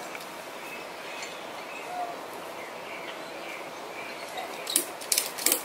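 Ratchet strap being cranked tight, tensioning the strap that holds an awning support pole down to a ground stake: a quick run of sharp clicks starts near the end. Before that, only faint bird chirps over steady outdoor background.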